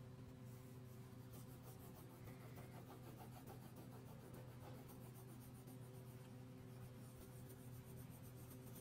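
Crayon scratching faintly on paper in rapid back-and-forth colouring strokes, over a steady low electrical hum.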